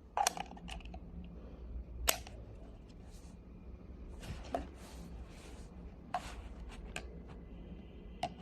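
Handling noise: about half a dozen sharp clicks and taps spread over several seconds, with light rustling between them.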